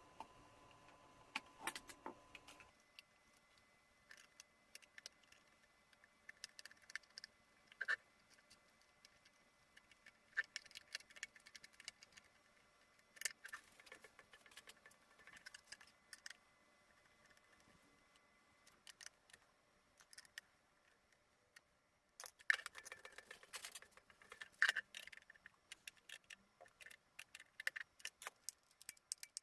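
Irregular light clicks and metallic clinks of small parts and tools being handled, growing busier near the end. A faint hum stops about three seconds in.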